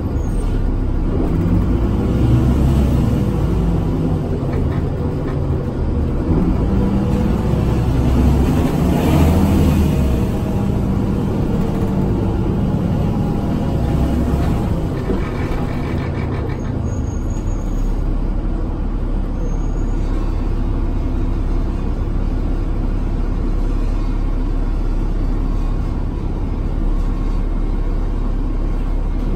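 Interior noise of a New Flyer D40LF transit bus on the move: its Cummins ISL diesel engine and drivetrain running, with the engine note changing over roughly the first ten seconds, then settling into a steady low drone.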